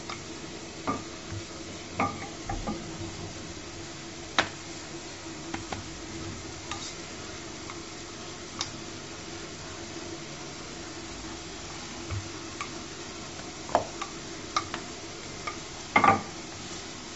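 Wooden rolling pin rolling out butter-layered laminated dough on a granite countertop: a soft steady background broken by scattered light knocks of the pin against the stone, the loudest a quick double knock near the end.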